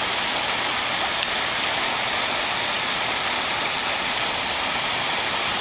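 Steady rush of splashing pond water.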